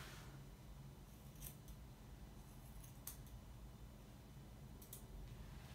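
Curved grooming scissors snipping the long hair on a dog's muzzle: a few faint, widely spaced snips over a low steady room hum.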